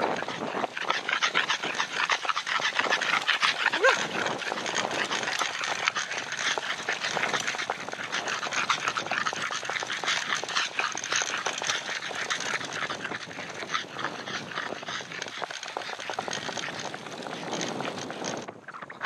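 A Boston terrier breathing hard and snuffling as it runs close alongside, over a steady rushing rustle of wind and grass. About four seconds in there is a short rising whine.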